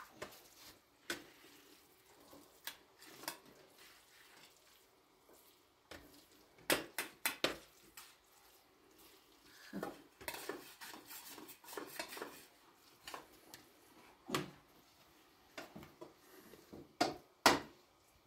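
Metal ladle clinking and scraping against a cooking pot and colander as food is scooped out, in scattered sharp knocks with a quick run of clinks about seven seconds in and the loudest ones near the end.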